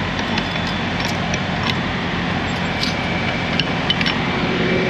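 A heavy-duty padlock being fitted to a semi-trailer's rear door latch: a handful of light metallic clicks and clinks over a steady engine hum.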